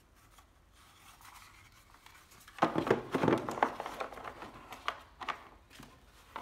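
Handling noise: after a quiet start, a couple of seconds of crinkling and rustling mixed with sharp clicks and knocks, then a few scattered clicks, as the cordless drill kit and its charger are moved about.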